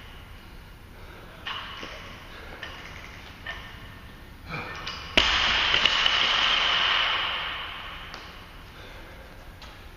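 A steel barbell loaded with rubber bumper plates dropped from overhead onto the floor: one loud crash about five seconds in, then the bar rings and fades out over two to three seconds, echoing in the large empty hall. Before the drop come a few lighter metallic clinks of the plates and collars shifting on the bar during the lifts.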